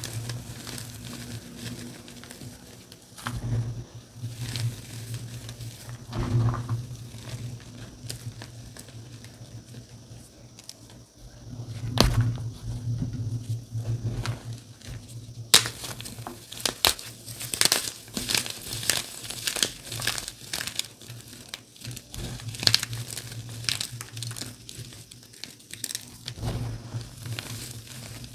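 Dyed gym chalk being crushed and crumbled by hand: a crunchy crackling as chunks and reformed pieces break up between the fingers, with a couple of sharp snaps in the middle and denser crackling from about halfway on. A steady low hum sits underneath.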